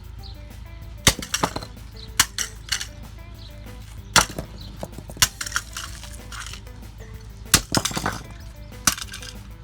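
A hammer repeatedly smashing an alarm clock: about ten sharp blows at irregular intervals. Background music plays throughout.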